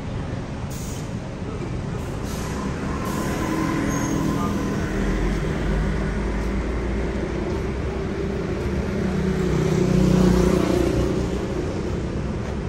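City street traffic, with a heavy vehicle's engine running as it passes, the rumble building to its loudest about ten seconds in.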